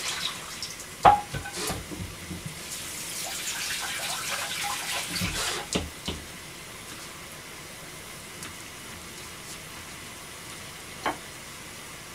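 Kitchen tap running into a sink for a few seconds, with a sharp knock of kitchenware about a second in and a few clicks and clatters around it. Then only a steady low background hiss, with one more click near the end.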